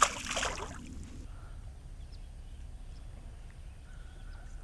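A released largemouth bass splashing into the lake beside the boat: a sharp smack at the start, then splashing water that dies away within about a second.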